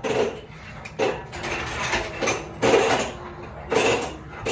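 Wooden building planks clattering and scraping as they are handled, in about five short bursts roughly a second apart.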